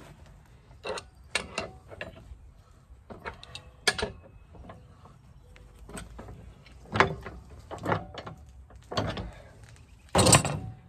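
Steel wrench and long bar clinking and knocking against a nut and the adapter on a hydraulic floor jack's saddle while the nut is tightened: scattered single metal clicks and knocks, with a louder clatter about ten seconds in.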